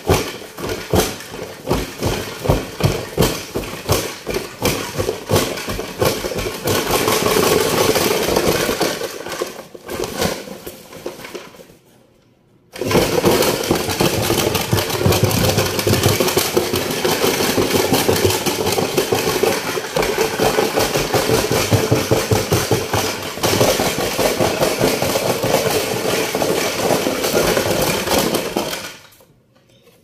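Homemade cardboard washing machine running, its drum spinning with loose objects knocking and rattling inside. The noise dies away about ten seconds in, starts again suddenly about thirteen seconds in, and runs steadily until it cuts out just before the end.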